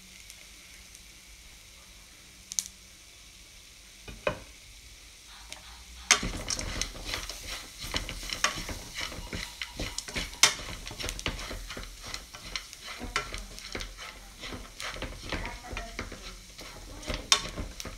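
Chocolate-coated corn kernels sizzling in a hot nonstick pan. Quiet for the first six seconds apart from two sharp clicks, then a dense crackling sizzle with occasional louder pops.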